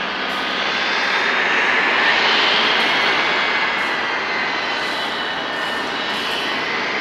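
Aero L-39 Albatros jet trainer's turbofan engine passing by: a high turbine whine over a steady rushing jet noise, swelling to its loudest about two seconds in and then easing slightly as the whine's pitch slowly shifts.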